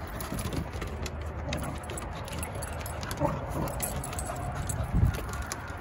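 Two small dogs scrambling and play-wrestling on a wooden deck: scattered light clicks and metallic jingling of their tags. A single low thump about five seconds in.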